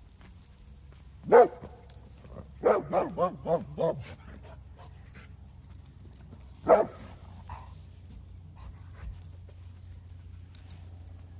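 A puppy barking: a single bark, then a quick run of five barks, then one more bark a few seconds later.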